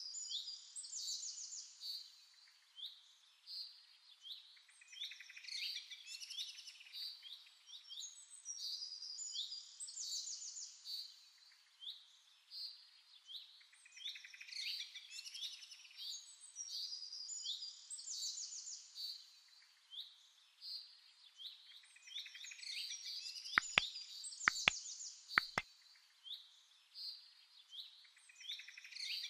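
Many small birds chirping and twittering, with quick trills overlapping one another throughout. Three sharp clicks come about a second apart roughly two-thirds of the way through.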